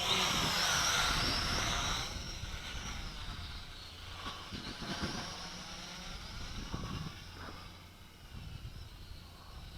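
HT F801C toy quadcopter's motors and propellers whining in flight. The whine is loudest for the first two seconds, then fainter and wavering in pitch and level as the quad moves about.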